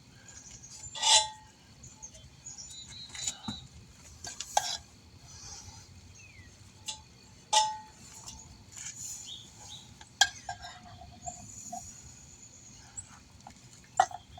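Scattered metallic clinks and knocks from tools and wheel parts being handled during tire work: about five sharp hits, a few ringing briefly, between quieter rattles.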